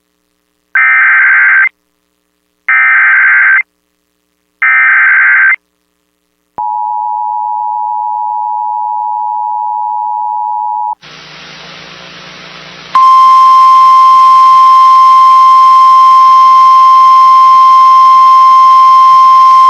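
Emergency Alert System header: three short bursts of warbling digital data, then the two-tone attention signal held for about four seconds. After a couple of seconds of hiss, a loud steady single tone with static starts near the end.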